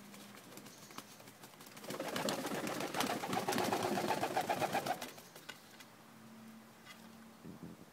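English Carrier pigeons flapping their wings, a loud rapid flurry from about two to five seconds in as one beats off the perch, with low pigeon cooing before and after.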